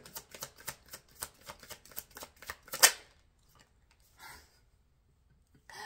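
Tarot cards being shuffled by hand: a quick run of crisp card clicks for about three seconds, ending in one sharp snap, then a brief soft rustle about four seconds in.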